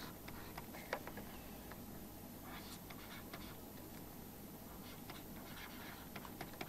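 Faint scratching and light tapping of a stylus writing on a tablet, with a few sharper ticks, one of them about a second in.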